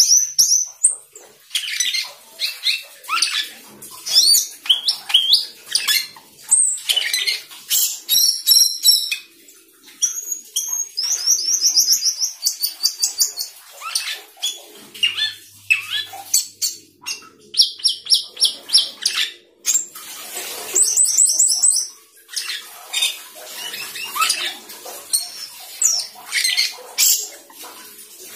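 Asian glossy starling singing a long, rapid run of varied chirps, whistles and short trills, some phrases fast series of repeated whistled notes, with brief pauses between phrases.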